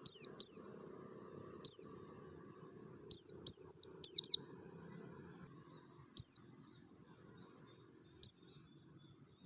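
White-eye (pleci, Dakun Merapi type) giving its wild-style 'ngalas' calls: short, sharp notes that each drop steeply in pitch. There are about ten of them at irregular gaps, a quick pair at the start and a fast run of five around the middle.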